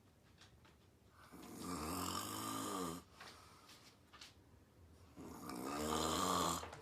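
A woman snoring in her sleep: two long snores about four seconds apart, each lasting about a second and a half and stopping abruptly, with quiet breathing between.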